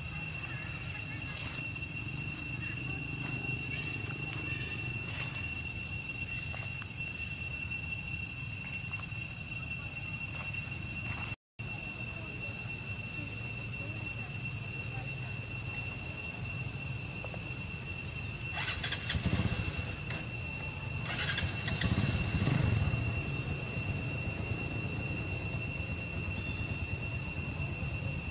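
Steady, high-pitched drone of insects, two even tones held without a break, cutting out for an instant about eleven seconds in.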